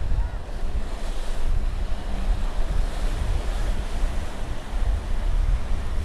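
Ocean surf breaking and washing up onto a sandy beach, with wind rumbling on the microphone.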